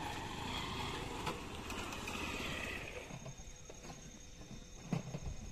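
Road traffic and street noise at a level crossing. It fades after about three seconds, leaving a faint high whine and a single knock near the end.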